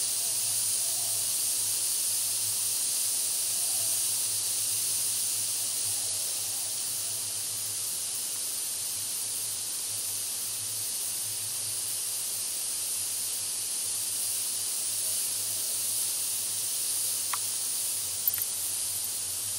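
Steady high hiss with a faint low hum under it, and a few faint ticks near the end.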